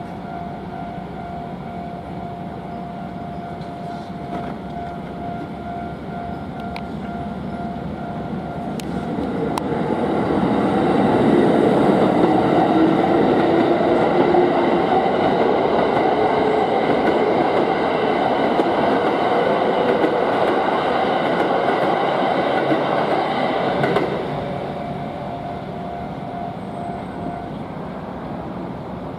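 Japanese level-crossing warning bell ringing its repeated kan-kan pulses while an electric train passes through the crossing, loud for about fourteen seconds. The train passing drowns out the bell, which is heard again once the train has gone and stops a few seconds before the end.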